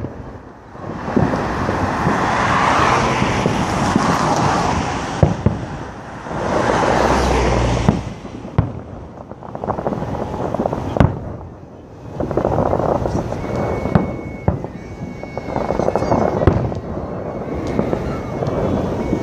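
Aerial fireworks shells bursting overhead: several sharp bangs spread out in time, with long stretches of rushing, crackling noise between them.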